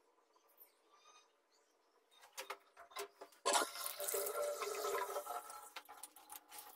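Water running from a chrome pillar tap over a hand and splashing into a ceramic washbasin. It starts suddenly about halfway through, after a few light clicks, and eases off near the end.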